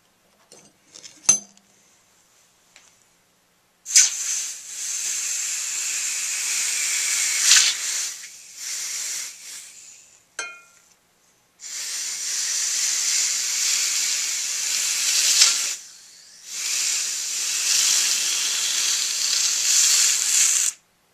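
Hot brass saxophone mouthpiece, just brazed with silver solder, quenched in a jar of water: a metal clink from the pliers about a second in, then hissing and sizzling in three long spells that each stop abruptly.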